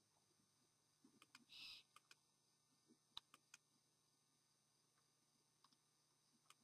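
Faint, short hissing screech of an owl about one and a half seconds in, among a scattering of faint sharp clicks, the loudest about three seconds in; otherwise near silence.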